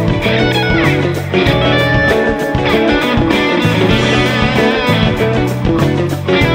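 Lead electric guitar from a Stratocaster-style guitar, played over a rock backing track with bass and steady drums.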